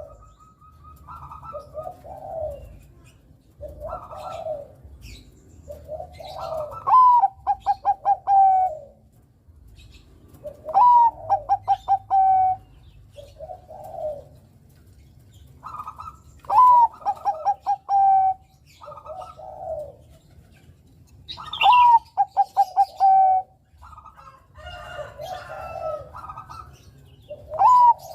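Bangkok perkutut, a bred line of zebra dove, cooing its song. About five loud phrases, each a quick run of short notes ending in a long held coo, with softer coos in between.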